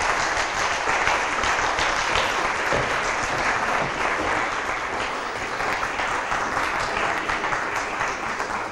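Audience applauding, a steady sustained round of clapping that eases off slightly near the end.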